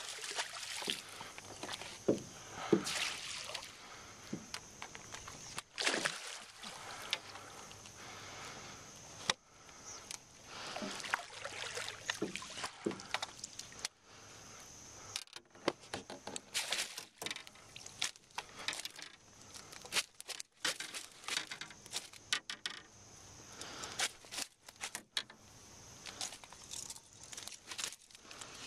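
Hooked largemouth bass splashing and thrashing at the water's surface, then many scattered clicks, scrapes and knocks as the fish is brought to a landing net at the side of a boat and lifted in.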